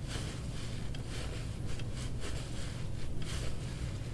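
Faint, irregular rustling of cloth and handling over a steady low hum.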